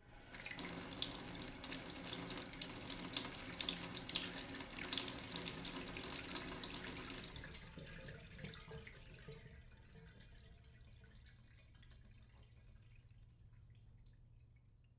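Rain falling in a thunderstorm, a dense even patter that fades away about eight seconds in, leaving near silence for the last few seconds.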